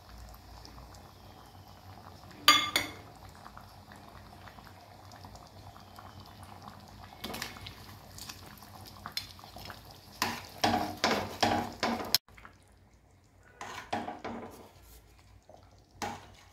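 Metal utensils against a stainless steel pot of simmering chicken gravy: a sharp clink a couple of seconds in, then repeated clinks and scrapes as a steel ladle and spatula stir the thick gravy, over its low bubbling.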